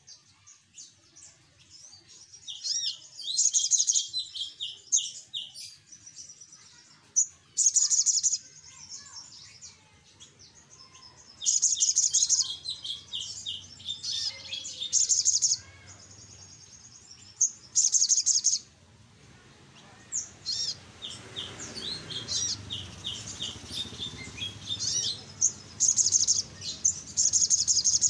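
Caged male sunbird singing: repeated bursts of rapid, high, chattering notes about a second or two long, with short pauses between them. The bursts come more often and run almost together in the last third.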